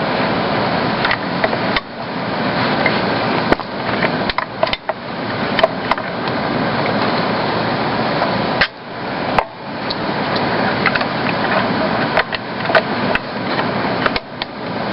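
Hoover Model 60 upright vacuum cleaner running, with its motor's steady sound dipping briefly a few times and scattered sharp clicks and knocks.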